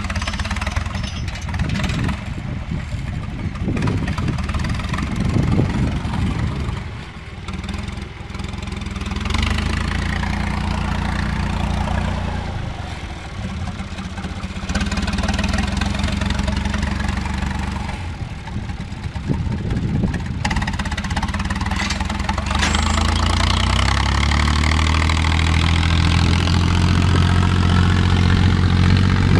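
John Deere 1030 tractor's three-cylinder diesel engine running under load through a stainless-steel straight-pipe exhaust while pulling a cultivator. Its pitch and loudness rise and fall, dipping briefly about seven seconds in, then climbing higher and louder over the last several seconds.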